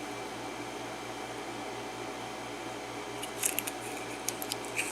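A steady low hum, then from about three seconds in a handful of short, light metal clicks as a plug follower pushes the plug out of the Schlage KIK lock cylinder.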